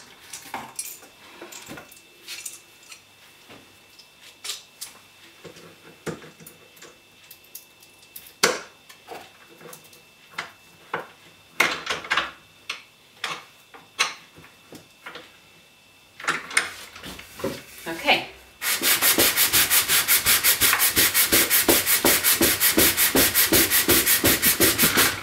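Wooden picture frame being rubbed back and forth by hand over 240-grit sandpaper glued to an MDF board, in quick, even, rasping strokes that start about three-quarters of the way in. Before that, scattered light knocks and clicks.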